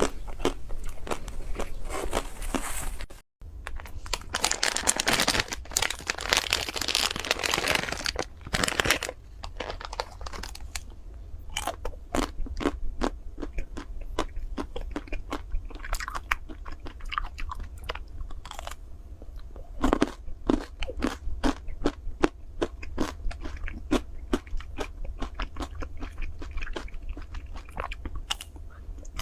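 Close-up biting and chewing of a chocolate-shelled ice cream bar, the crisp chocolate coating crackling and crunching. The crunching is dense for the first several seconds, with a brief break about three seconds in, then turns into sparser clicky chewing.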